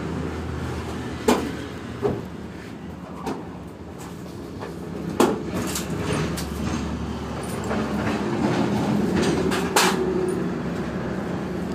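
A motor engine running steadily at idle, with several sharp knocks and clanks over it, the loudest a little after a second in, about five seconds in and near the end.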